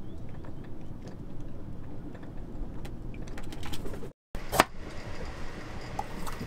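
A steady low rumble with faint clicks, then a sharp knock of a heavy kitchen knife striking a coconut shell on a wooden cutting board, followed by a lighter tap.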